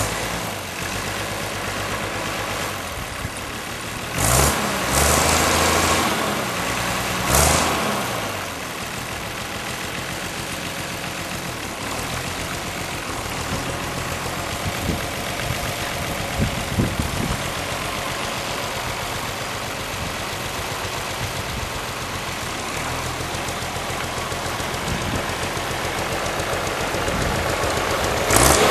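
The 1955 Allis-Chalmers WD-45 Diesel tractor's six-cylinder diesel engine running as the tractor is driven. It surges louder twice, about four and seven seconds in, then runs steadily and grows louder near the end as the tractor comes closer.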